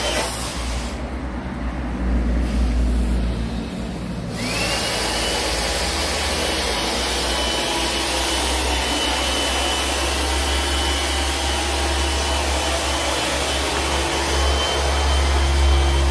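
Battery-powered air inflator pumping air into an inflatable boat, running steadily with a whine. It cuts back about a second in, then spins up again about four seconds in with a rising whine and runs on steadily.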